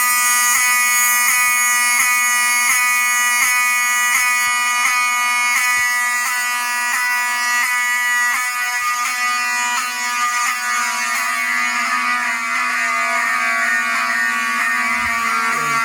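Wheelock mechanical horn strobes (7001T and 7002T) sounding a continuous fire alarm: a loud, steady, buzzy horn tone with a regular beat running through it.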